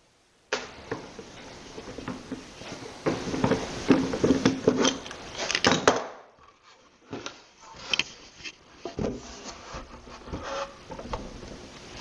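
Plywood pieces of a bird feeder being handled and fitted together on a workbench: wood knocking, scraping and rubbing in irregular bursts, with a short lull near the middle.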